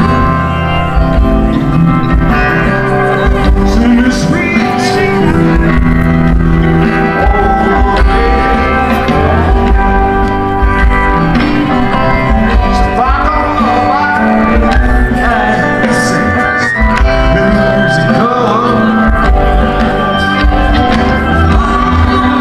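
Live rock band playing loud amplified music in a large concert venue, with a man singing over the electric guitars and band.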